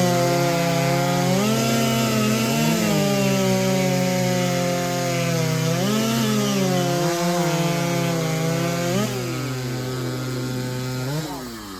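Large over-90cc two-stroke racing chainsaw at full throttle cutting through a log. Its pitch dips and recovers several times as the chain bites in and breaks free. About eleven seconds in the throttle is released and the engine winds down.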